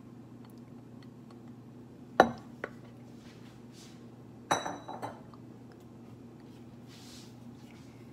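Kitchen clatter: a sharp knock about two seconds in, then a dropped lid hitting and bouncing, clattering with a brief metallic ring, about halfway through.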